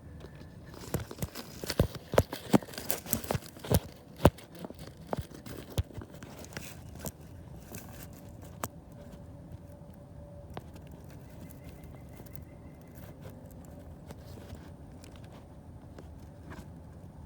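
Sharp clicks and knocks, a quick cluster of them in the first few seconds and then scattered single ones, over a low steady hum.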